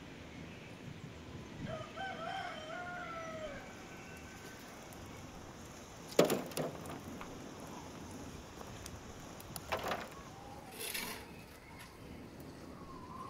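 A rooster crows once, a drawn-out call about two seconds in. A sharp metal knock about six seconds in is the loudest sound, with two more knocks near ten seconds and a short scrape just after, as a shovel works embers into a metal wheelbarrow. A chicken calls again near the end.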